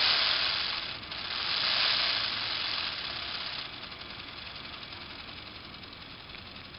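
Lego Power Functions electric motor turning a Lego model V6 engine, a noisy mechanical whir and rattle of its moving parts. It is loudest in the first few seconds, with a short dip about a second in, then runs steadier and quieter.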